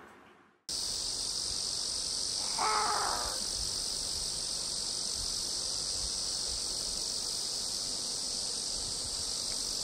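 Steady, high-pitched summer insect chorus, starting suddenly just under a second in, with one short crow caw about two and a half seconds in.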